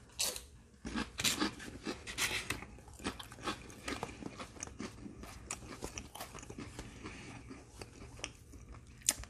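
A person chewing a cracker topped with a sardine: a run of crisp crunches, loudest in the first few seconds and then softer.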